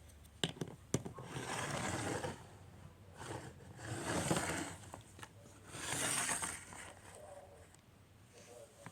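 Plastic slime containers being handled: two sharp clicks, then three scraping, rustling swells as they are moved across a surface.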